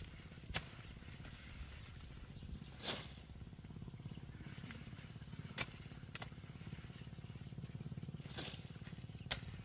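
Quiet outdoor background with a thin steady high-pitched tone and a handful of short, sharp knocks or snaps scattered through it, about six in all.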